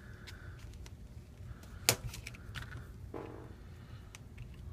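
Small sharp clicks and light taps from a smartphone being handled on a work surface, the loudest about two seconds in, with a short faint scrape a little after three seconds.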